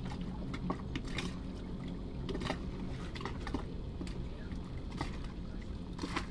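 Scattered light clicks and taps of hands handling and pressing a rubber sealing ring into the metal flange of an anchor windlass motor, over a steady low hum.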